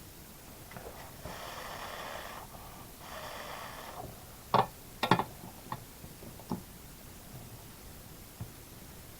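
Two breathy hissing rushes, each about a second long, then a handful of sharp clicks and taps, two of them loud, as tools and parts are handled on a soldering bench.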